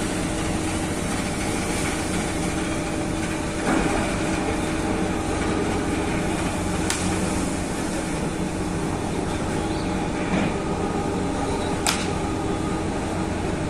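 Steady mechanical drone of running engines and machinery with a constant hum, and a couple of sharp metallic clicks partway through and near the end.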